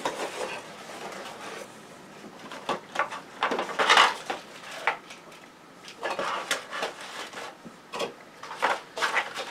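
A cardboard mail box being opened by hand: the flaps are pulled open and the contents are handled and lifted out, making irregular scrapes, rustles and light taps.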